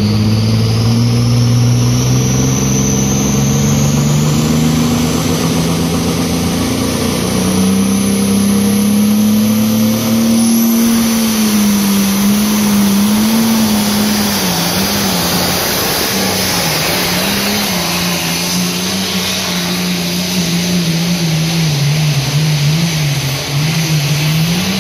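A pulling tractor's engine running hard and loud as it hauls a weight sled down the track, with a high whine rising over the first few seconds. From about halfway its pitch wavers up and down rapidly as the load on the engine changes.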